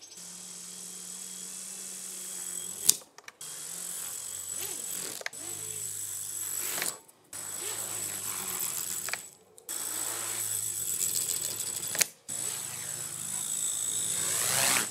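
Small electric RC helicopter's brushless main-rotor motor whining as it spins up, with several sharp clacks as the rotor blades and frame hit the ground while the machine tips and lurches on its first test. The sound cuts off abruptly a few times, and the whine rises near the end as it lifts and skids sideways.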